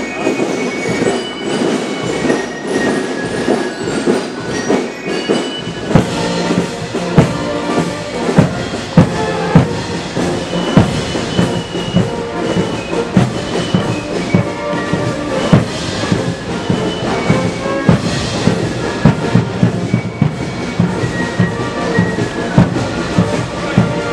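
Marching band music: a high piping melody at first, with strong regular drum beats coming in about six seconds in.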